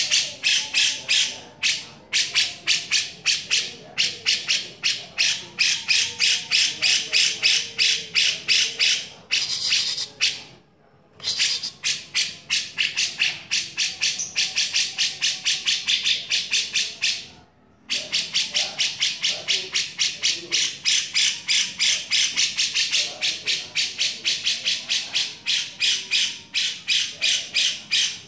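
Grey-cheeked bulbul (cucak jenggot) giving a long, harsh chattering call, a rapid run of scratchy notes at about five a second, broken twice by short pauses.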